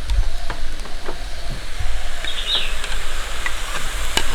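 A steady low rumble with a few scattered light clicks, like a utensil knocking against the cooking pot, and one short high chirp about halfway through.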